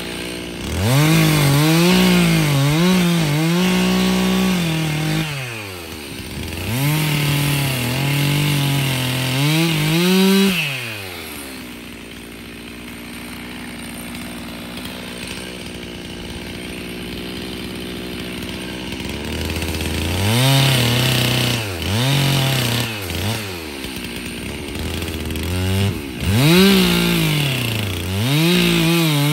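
Stihl MS 362 C 59 cc two-stroke chainsaw revving and cutting through old boards, its engine note rising and sagging as the chain loads up in the wood. It drops to a steady idle for about eight seconds in the middle, then revs and cuts again. It runs an old bar and a dull, badly stretched chain that could no longer be sharpened well.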